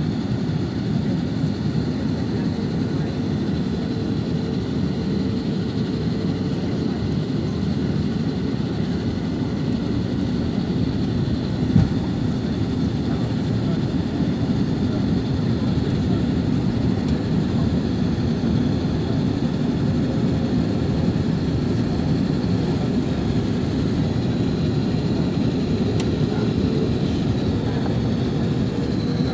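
Steady cabin noise inside an Airbus A330-900neo descending on approach: the low rush of airflow and its Rolls-Royce Trent 7000 engines, with a faint steady whine on top. A single short knock about twelve seconds in.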